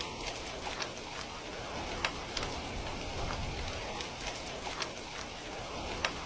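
Heavy rain falling as a steady hiss, with individual drops ticking sharply at irregular intervals, two of them louder, about two seconds in and near the end.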